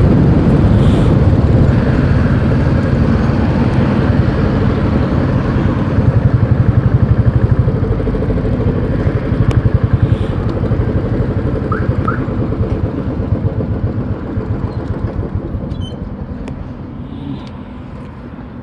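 Single-cylinder motorcycle engine running under way, with a pulsing exhaust beat, then dropping off steadily over the last few seconds as the bike slows and rolls to a stop.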